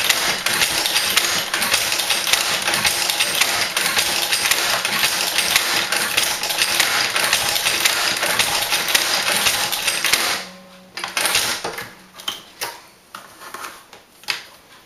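Tippmann Boss hand-operated leather stitcher sewing a stitch line through a leather holster, a steady run of rapid mechanical clicks and knocks. It stops about ten seconds in, leaving a few scattered clicks and knocks.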